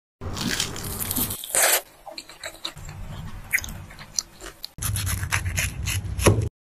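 Crisp crackling of flaky puff pastry being broken apart, then, about five seconds in, a second stretch of crunching from the crisp breadcrumb crust of a fried cutlet.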